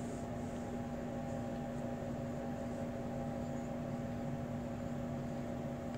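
Steady low hum with a faint even hiss, unchanging throughout: background room noise from a running machine.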